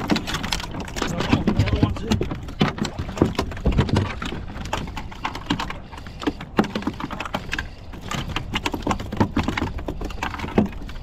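Spinning reel clicking and ticking rapidly and irregularly as line is wound in against a hooked fish, with water splashing against the kayak.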